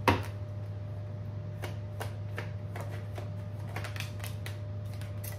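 Tarot cards being shuffled and handled by hand: a run of short, soft card clicks and snaps, with a sharper tap just at the start.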